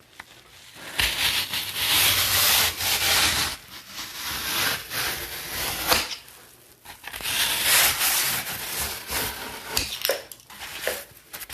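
Rough, rasping strokes of a tool worked against a hard material, like sawing or scraping, in three long spells with short pauses between.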